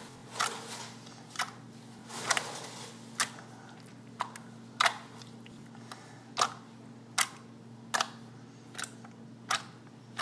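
Slime being squeezed and pressed in the hands, giving sharp pops about once a second, about a dozen in all, over a steady low hum.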